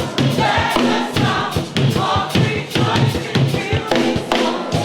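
Live gospel worship music with a choir singing.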